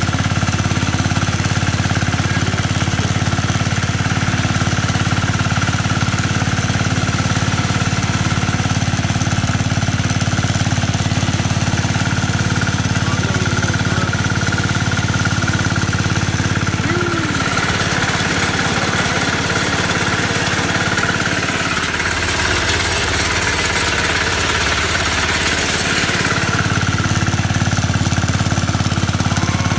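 Massey Ferguson garden tractor's engine running steadily as the tractor drives through snow. From about halfway in, a hissing noise rises for roughly ten seconds while the engine note shifts lower, then the steady running returns.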